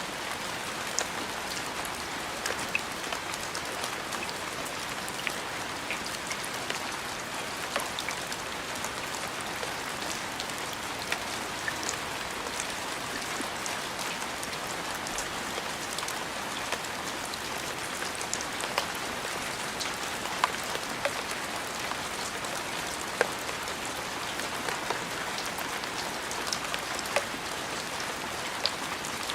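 Steady rain falling, a continuous hiss of rain on a surface dotted with scattered sharper drop impacts.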